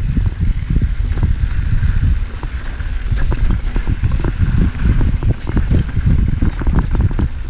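Mountain bike descending a dirt singletrack at speed: wind buffeting the bike-mounted camera's microphone, with a steady run of clicks and knocks as the bike and tyres rattle over the rough trail.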